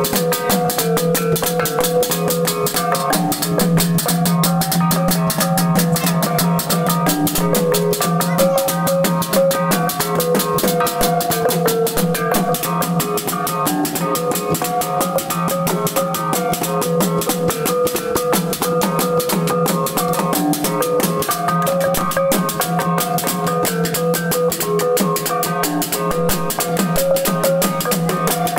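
Traditional gong-and-drum ensemble: bossed metal gongs hung in a wooden frame, struck with wooden sticks, ringing in several pitches over fast, even strokes on tall wooden drums with hide heads. It plays continuously at a steady level.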